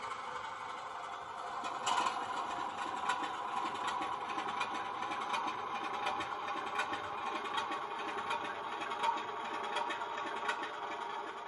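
Sound-fitted 00 gauge model locomotive, its DCC sound decoder playing a diesel engine sound through a small speaker, steady with light clicking throughout; it fades near the end.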